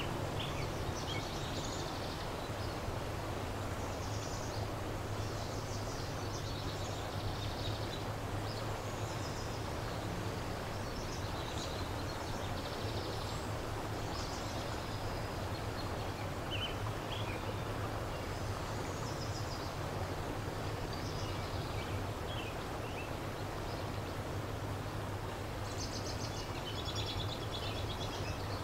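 River water flowing with a steady rush, while small birds chirp at scattered moments, with a run of rapid trills near the end. A low steady hum sits underneath.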